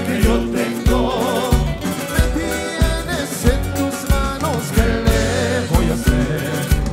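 Festive dance music with a heavy, steady bass beat and a wavering melody over it.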